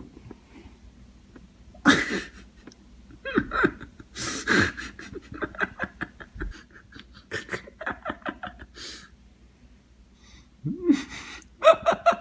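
People's voices in short bursts of laughter and wordless cries, with quiet gaps between.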